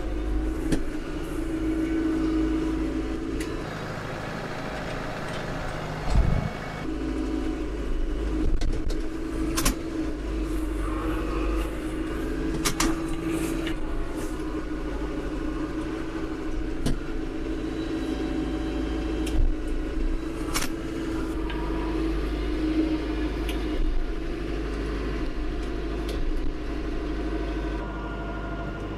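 Branson compact tractor's diesel engine running steadily as the tractor drives, with a few sharp clanks along the way.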